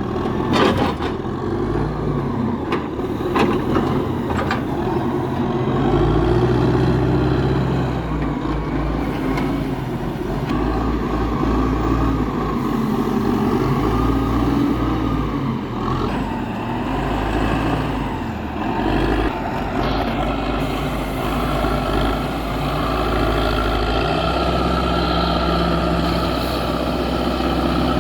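Heavy diesel engine of a logging truck and its loading gear running at working speed, its pitch rising and falling several times as the load on it changes. A few sharp knocks come in the first few seconds.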